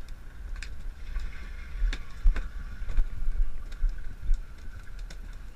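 Fishing boat's engine humming steadily under low wind rumble on the camera microphone, with scattered sharp clicks and knocks.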